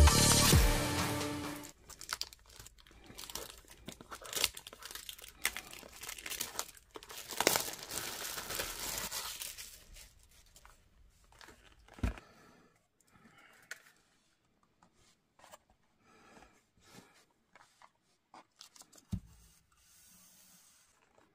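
Background music cuts off about two seconds in. Trading card game packaging is then torn open and crinkled for several seconds, followed by faint scattered clicks and taps.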